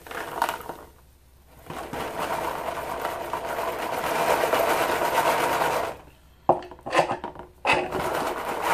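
Moly-coated bullets and corn cob media poured into a Lyman Turbo Sifter and rattled around as the sifter is turned back and forth on top of a plastic tumbler bowl, the media shaking through into the bowl below. A dense, steady rattling with a few sharper clacks near the end.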